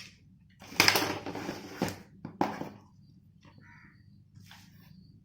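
Packaging being handled and opened: a rustling scrape about a second long, then a couple of sharp clicks and a few fainter rustles.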